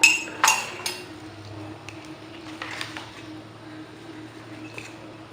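A metal spoon clinking sharply against a glass three times in the first second, then softer taps and scraping: picking lime seeds out of freshly squeezed lime juice.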